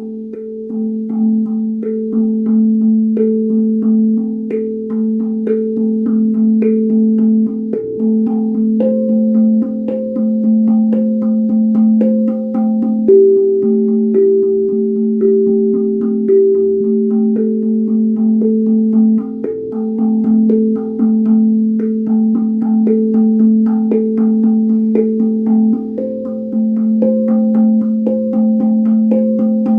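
Guda steel tongue drum being played: a low note keeps ringing underneath while higher notes are struck in a slow, even rhythm, stepping between a few pitches, each note ringing on.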